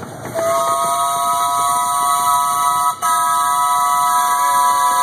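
Ride-on miniature steam locomotive's whistle blowing one long chord of several steady tones, broken briefly about three seconds in.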